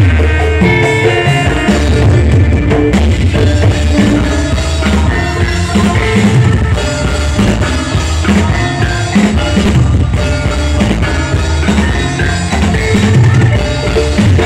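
Live band music played loud through a PA sound system, with a drum kit and heavy bass driving a steady beat under sustained instrument notes.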